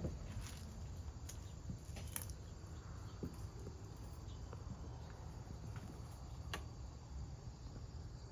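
Faint outdoor ambience of insects, crickets, buzzing steadily, over a low background rumble, with a few soft scattered ticks and taps.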